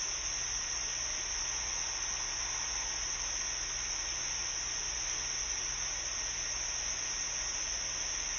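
Steady background hiss with a constant high-pitched drone and a low hum underneath; no roar is heard.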